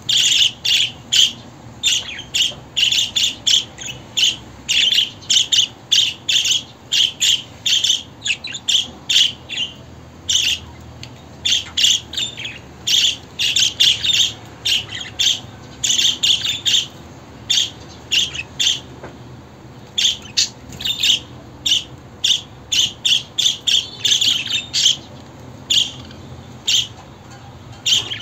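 Budgerigar calls: quick runs of short, sharp chirps and squawks, several a second, broken by a few brief pauses.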